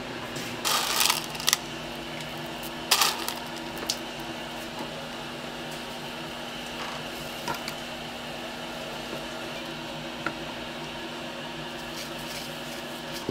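Steady hum of a running machine, with a few short knocks and clatters of handling in the first four seconds, the loudest about one and three seconds in.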